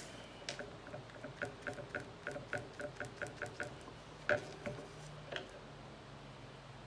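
Paintbrush tapping and dabbing on paper: a run of light, quick ticks, about four a second for two seconds, then one sharper click.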